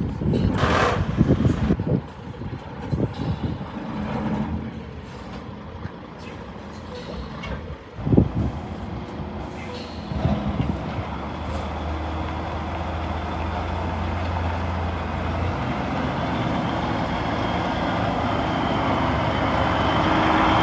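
DAF CF suction excavator truck running, with irregular knocks and hisses and a sharp knock about eight seconds in, then a steady machine noise that builds gradually louder toward the end.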